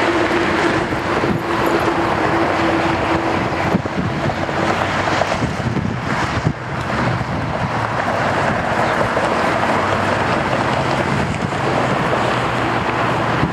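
A Boeing 757-200's Pratt & Whitney PW2037 turbofans at takeoff thrust through the takeoff roll and lift-off, giving a steady loud rush of jet noise. A low hum grows stronger in the second half as the jet climbs away.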